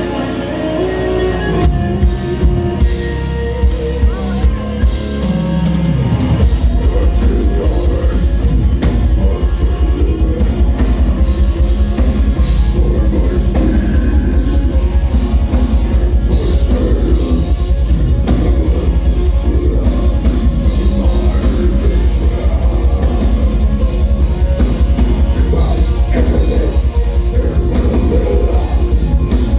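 Live death metal band playing loud: distorted guitars and drums, with a few separate accented hits for about the first six seconds, then very fast, unbroken kick-drum strokes that carry on from about six seconds in.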